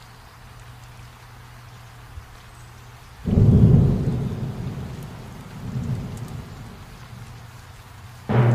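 A wooden hammer handle clamped in a vise is rubbed hard with a hand-held pad to work in boiled linseed oil, making a loud, low rubbing rumble. The rumble starts suddenly about three seconds in, fades, swells again around six seconds, and starts again near the end, over a low steady hum.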